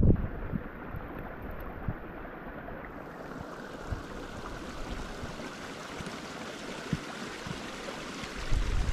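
Steady outdoor rushing hiss of wind and running water, with a few faint short knocks.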